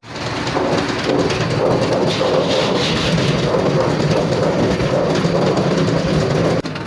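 Steady, loud mechanical rumble and hiss, like machinery running, cutting off abruptly about six and a half seconds in.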